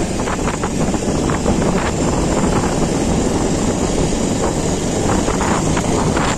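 Steady wind rush on the microphone of a moving motorcycle, with the bike's engine running underneath.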